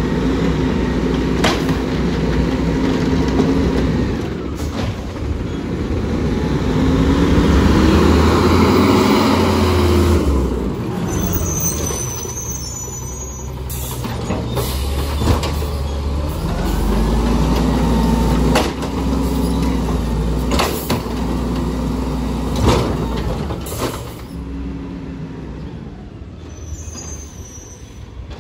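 Automated side-loader garbage truck's diesel engine revving up and down to drive its hydraulic arm as it lifts and empties wheeled carts. Repeated sharp knocks and clanks come as the carts are slammed against the hopper and set back down.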